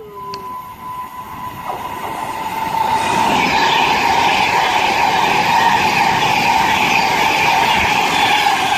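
Class 390 Pendolino electric train passing through the station at speed. A rush of wheels and air builds over the first three seconds, then holds loud and steady, with a steady whine running through it.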